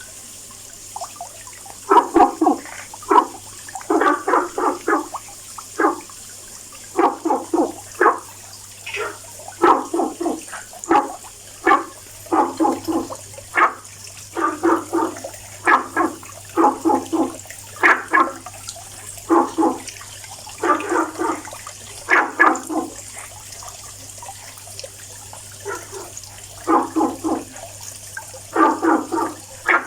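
Frogs calling: short pitched croaks, often in quick runs of two to four, repeated irregularly throughout.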